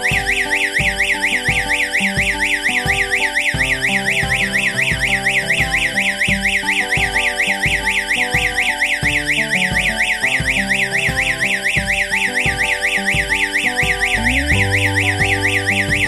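Electronic siren strobe of a power-failure security alarm sounding a fast warble, about four sweeps a second, triggered by mains power being cut. It starts suddenly and cuts off on its own after about fifteen seconds.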